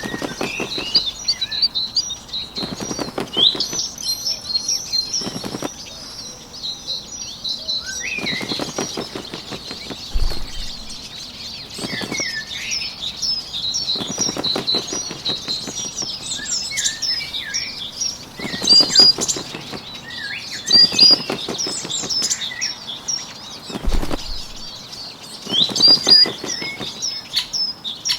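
A bird's wings flapping in short bursts of rapid fluttering, each about a second long and coming every few seconds, over steady bird chirping.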